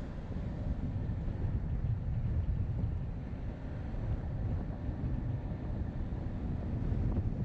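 Car driving, a steady low rumble of road and wind noise buffeting the GoPro's microphone.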